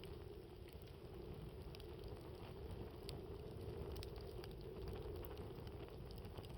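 Campfire burning with faint crackling and scattered sharp pops, over a steady low rumble.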